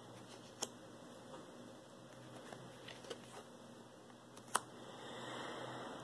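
Tarot cards handled on a cloth-covered table: two sharp little taps, about half a second in and again past four and a half seconds, a few fainter ticks, and soft rustling near the end, over quiet room tone.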